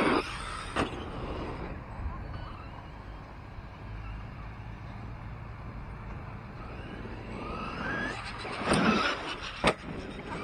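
Battery-electric RC truck running on a dirt track, its motor whining up in pitch near the end. Sharp knocks come right at the start and twice near the end.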